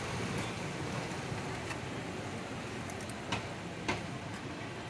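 Steady background hum of street noise, with two short clicks late on, just over half a second apart.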